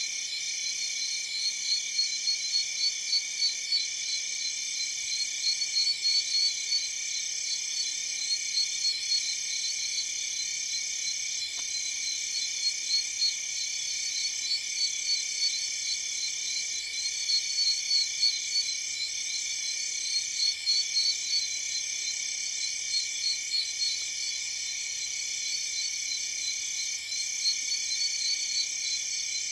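Night chorus of tropical-forest insects and frogs: several steady, high-pitched trilling layers, one of them rapidly pulsing.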